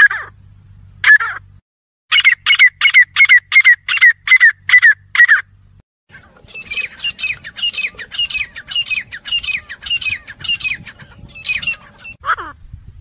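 Grey francolins calling: loud, sharp, repeated calls in two long runs of about three calls a second, with a few lower, single calls at the start and near the end.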